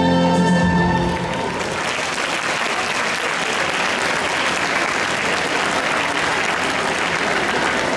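A piece of music ends about a second in, and an audience breaks into steady applause that carries on to the end.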